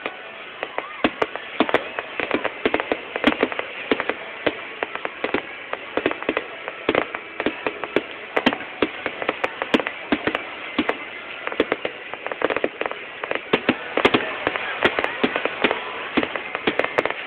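Fireworks crackling: a dense, irregular run of sharp pops, several a second, setting in about a second in and continuing.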